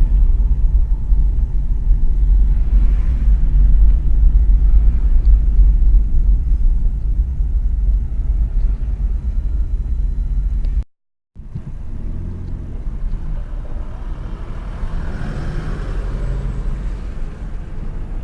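Car on the move, a steady low road rumble. The sound cuts out for a moment about eleven seconds in and comes back quieter, swelling briefly a few seconds later.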